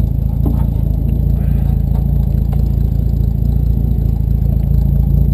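A 1954 Dodge M37 Power Wagon's flathead inline-six engine idling steadily, with a deep even exhaust rumble. The exhaust system is in poor shape, with the muffler hanging off.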